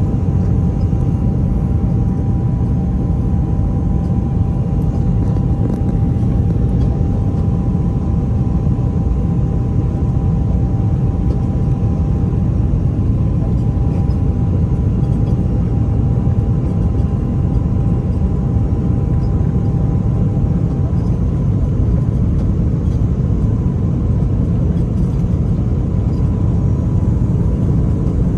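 Steady cabin noise of an Airbus A330-300 with Rolls-Royce Trent 700 engines: a loud, even rumble of engines and airflow, with two faint steady whining tones, one of which stops about three quarters of the way through.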